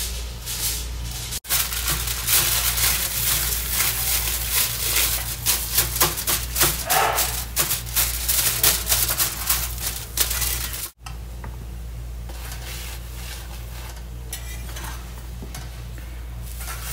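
Aloo paratha sizzling in ghee on a flat iron tawa, with a metal spatula scraping and pressing it against the pan. The scraping and crackle are busiest until about eleven seconds in, then give way to a quieter steady sizzle.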